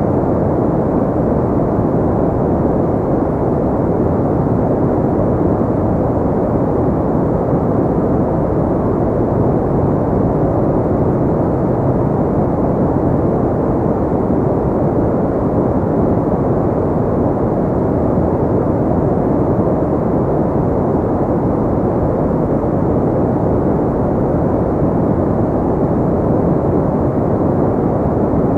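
Steady, unchanging sleep noise of the white-noise kind, deep and muffled, with little hiss.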